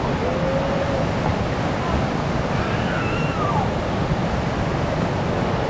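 Steady rush of a whitewater rapid churning over rock ledges, with a few faint distant calls heard over the water.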